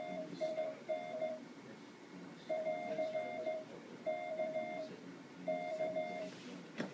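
Morse code tone keyed in dots and dashes, in groups with short pauses between them: the amateur station calling CQ on the 500 kHz band. A sharp click comes just before the end.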